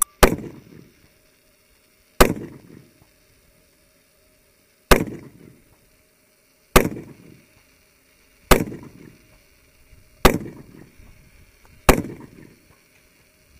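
Eight single gunshots on a firing range: two close together at the start, then one about every two seconds, each trailing off in an echo.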